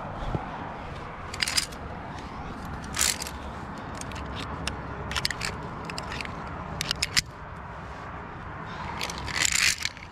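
Via ferrata lanyard carabiners clicking and scraping against the steel safety cable as they slide along it and are handled, in short separate strokes. The longest and loudest scrape comes near the end, over a steady low rumble.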